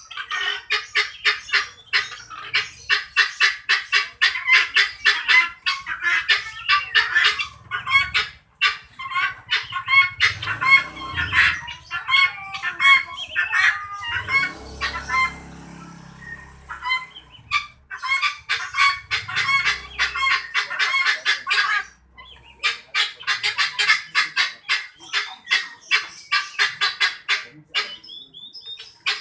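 Chickens calling over and over in a fast run of short, sharp clucking cries, several a second, stopping briefly twice along the way.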